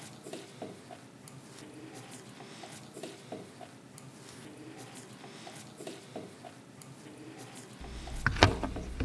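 Faint small metallic clicks and ticks of a hand tool working the brass nuts off the studs of a freeze dryer's display panel, with a few louder knocks of handling near the end.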